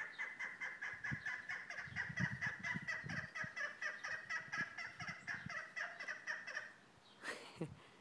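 A bird's rapid, rattling call: a long run of harsh, evenly repeated notes, about seven a second, that stops about seven seconds in.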